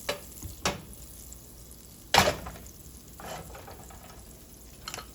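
A few separate knocks and clunks of kitchen items being handled and set down, at uneven intervals, the loudest about two seconds in.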